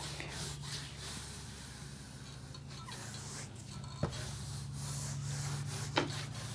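Marker writing being wiped off a whiteboard by hand: a steady rubbing, with two short knocks against the board about four and six seconds in.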